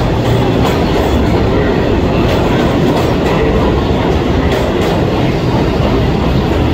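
NYC Subway R62-series (3) train pulling out of an underground station past the platform. The cars make a steady rumble, with wheels clicking over rail joints now and then.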